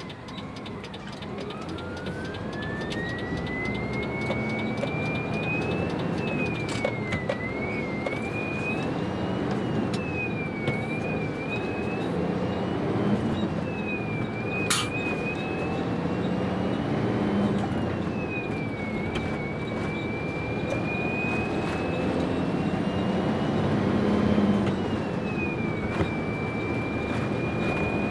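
Isuzu FXZ truck's diesel engine heard from inside the cab, pulling up through the gears of its non-synchro box. A whine climbs with the revs and falls back about four times as each upshift is made. There is a sharp click about halfway through.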